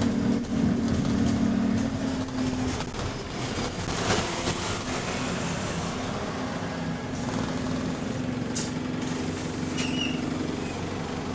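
Alexander Dennis Enviro400 MMC double-decker bus under way, heard from inside: a steady engine and drivetrain drone, strongest in the first few seconds and then easing off, with a brief high tone near the end.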